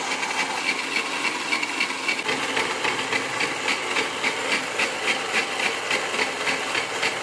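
Homemade mixer grinder running with its vegetable-slicer attachment, cutting raw tapioca: a steady motor noise with an even pulsing of about three beats a second.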